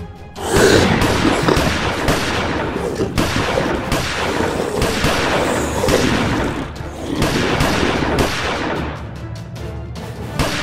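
Rapid gunfire sound effects over background music, breaking in suddenly about half a second in and running loud with many sharp cracks.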